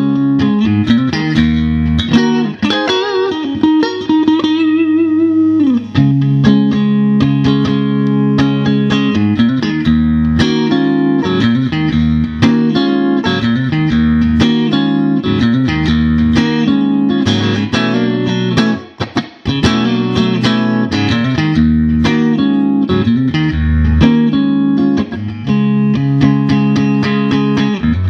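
Fender Stratocaster 'Lenny' model electric guitar played through a Fender Vibrolux Reverb amplifier: notes and chords, with bent notes and vibrato a few seconds in. The playing briefly drops out about two-thirds of the way through.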